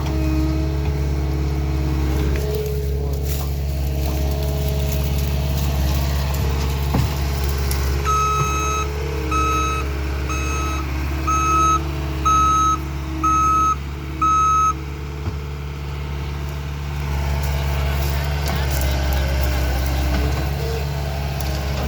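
Skid steer loader's engine running steadily, with its reverse alarm sounding seven beeps about a second apart partway through as the machine backs up.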